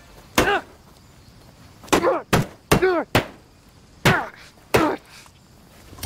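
A series of hard blows struck against a car, about seven sharp knocks coming irregularly over some four and a half seconds, several with a brief ring after the hit. The blows do no visible damage to the car.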